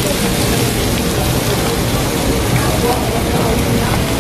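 Pork belly and chicken sizzling on a hot tabletop grill plate: a steady, even hiss of fat frying.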